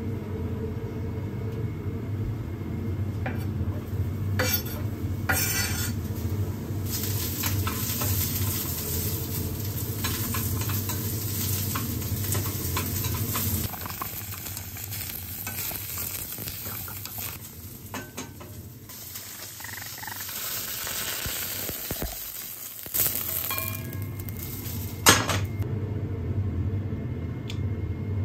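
Sliced mushrooms sizzling as they fry in oil in a frying pan, stirred and turned with tongs, with a few sharp clacks of the tongs on the pan over a steady low hum.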